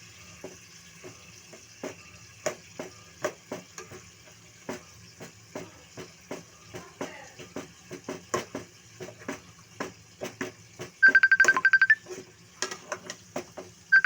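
A utensil knocking and scraping irregularly against a cooking pan as food is stirred. About eleven seconds in, a loud rapid electronic trill at one high pitch sounds for about a second, and it starts again at the very end.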